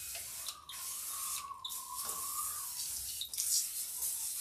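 Hand-pump pressure sprayer misting brake rejuvenation spray onto the rear brake: a steady hiss of spray, broken by three brief pauses.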